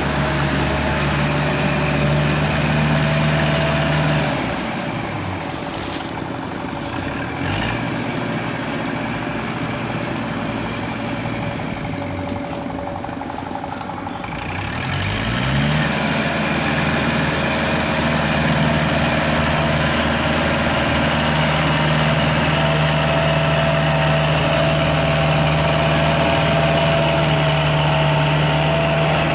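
Kubota tractor's diesel engine running under load as it tills a flooded rice paddy. About four seconds in the engine note drops lower and wavers. Around fifteen seconds in it rises back up and then runs steadily.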